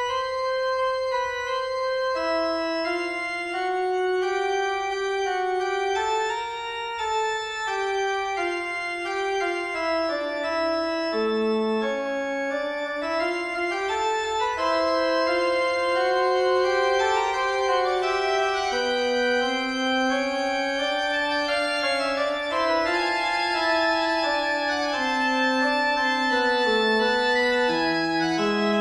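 Background music: a slow electronic keyboard melody of held, overlapping notes with an organ-like tone.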